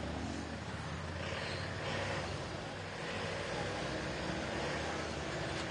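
Tourist road train's engine running low and steady as the train gets under way.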